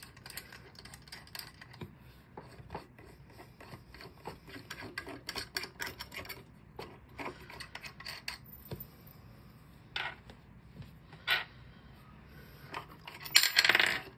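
Small metal clicks and ticks of thumb screws being turned by hand out of a coffee grinder's burr carrier, with a few sharper taps and a loud metallic clatter near the end as the loosened screws are set down on the grinder's metal base.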